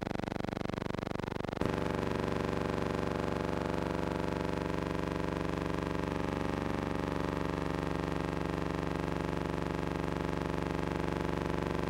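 Steady buzzing hum with many evenly spaced overtones. Its tone shifts abruptly and gets a little louder about a second and a half in, then holds steady.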